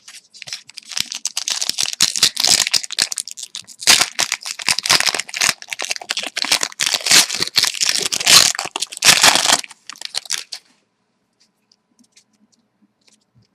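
Foil wrapper of a hockey card pack being torn open and crinkled. The dense crackling lasts about ten seconds, then stops.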